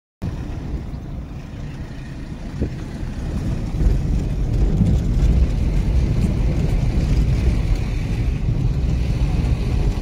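Wind buffeting an outdoor microphone: an uneven, low rumbling noise that grows louder over the first few seconds.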